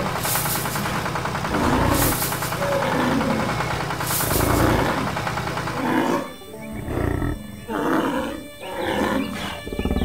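Animated bison's bellowing calls, repeated several times over background music. A steady running noise lies under the first six seconds and drops away about six seconds in, leaving about five short, separate calls.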